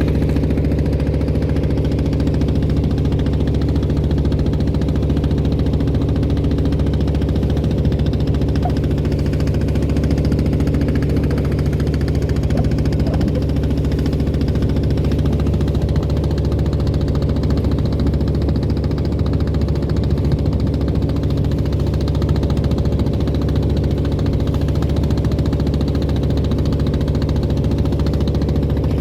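The engine of a klotok, a small wooden motorboat, running steadily at an even pace, a deep thudding hum.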